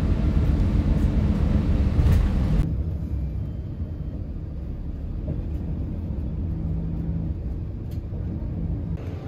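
Inside a moving city bus: steady engine and road rumble. For the first two and a half seconds a small handheld electric fan blows close by with a louder airy hiss, which then stops abruptly, leaving the bus rumble with a faint engine hum.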